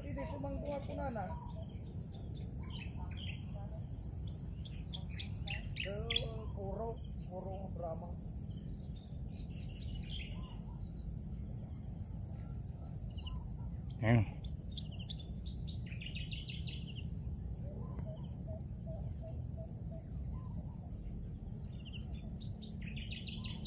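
Steady high-pitched drone of insects such as crickets in a grassy field, with scattered bird chirps and a steady low rumble underneath. A brief louder sound stands out about halfway through.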